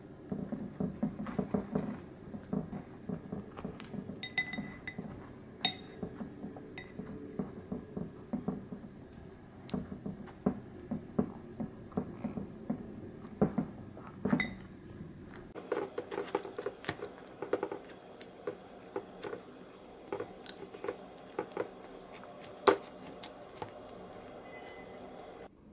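Wooden chopsticks knocking and clinking against a glass mixing bowl as egg-soaked baguette slices are turned and pressed, in irregular light taps with a few short glassy rings.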